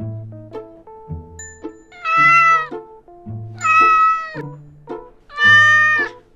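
A cat meowing three times, each meow a little under a second long and evenly spaced, over light plucked-string background music.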